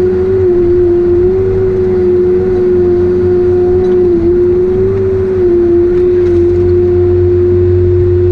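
Heavy diesel forestry machine running at high, steady revs: a loud, continuous drone with a strong held tone that dips slightly a few times.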